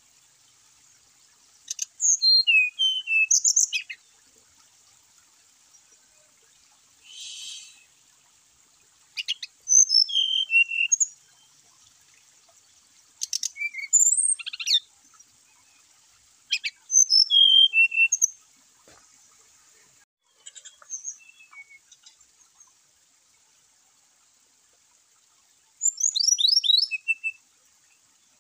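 Brown-chested jungle flycatcher singing in short bursts of a second or two each, about seven in all, a few seconds apart. The phrases mix clear whistled notes with quick clicky trills, and the last one has a run of falling notes.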